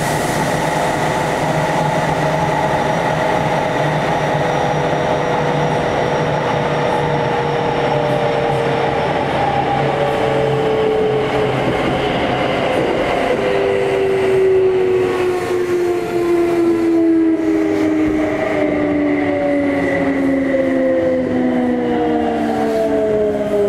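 Kintetsu 3200 series train heard from inside the car in a subway tunnel: the GTO-VVVF inverter's whine over steady wheel and rail rumble, its tones falling in pitch as the train slows.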